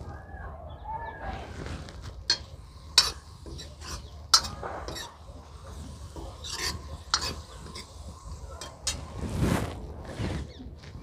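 Steel ladle stirring in an iron kadhai, with several sharp metal clinks, the loudest about three and four seconds in.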